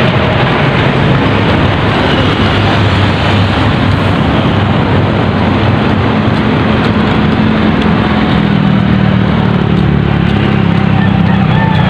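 Steady city road traffic: a constant roar of passing cars, with engine hum rising in pitch as another vehicle goes by in the last few seconds.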